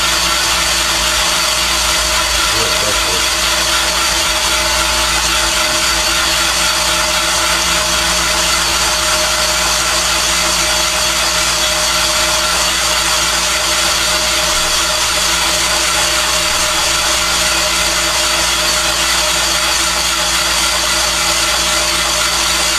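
Van Norman 777 boring bar running steadily, a whine with several held tones over a hiss. Its cutter is spinning inside an engine cylinder and taking metal off the wall, boring it 0.040 in oversize.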